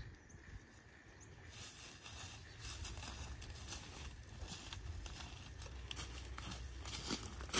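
Rustling and crackling of dry leaf litter and twigs as someone moves through brush, irregular small snaps and steps, over a low wind rumble on the microphone.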